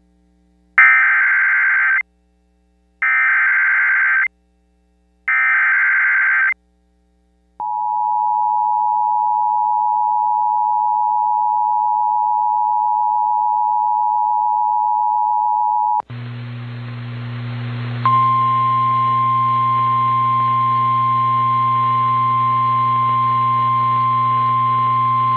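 Emergency Alert System SAME header: three short bursts of warbling digital data tones. It is followed by the EAS two-tone attention signal, held steady for about eight seconds. The sound then cuts to static-laced weather radio with a low hum, and about two seconds later the NOAA Weather Radio single-tone 1050 Hz warning alarm comes in and holds steady.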